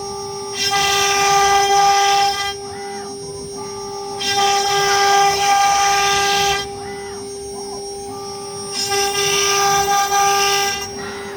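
AKM2040 CNC wood router's spindle running with a steady high whine. It grows louder and hissier three times, for about two seconds each, as the machine cuts.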